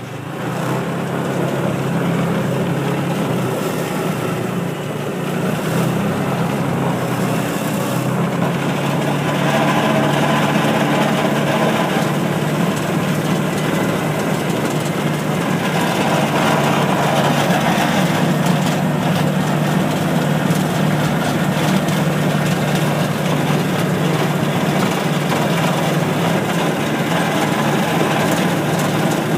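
Engine of a small ride-on farm vehicle running steadily while under way, with a constant low hum.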